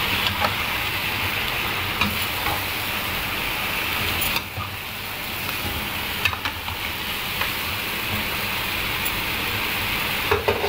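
Chicken pieces sizzling steadily in oil in a kadhai while being stirred, with the utensil clicking and scraping against the pan now and then and several quick clicks near the end.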